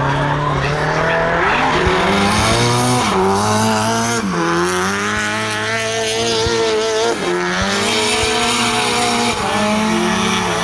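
Drift car's engine revving hard, its pitch climbing and dropping several times as the throttle is lifted and reapplied, with tyres squealing as the car slides sideways through the corner.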